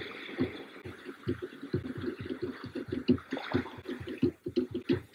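Rapid, uneven Tahitian drumbeats, several a second, over a steady hiss.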